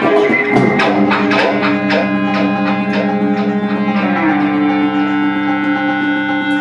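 Amplified experimental ensemble music with electric guitar. Quick percussive strikes thin out over the first three seconds while long, steady held tones build underneath, and a higher sustained note enters about four seconds in.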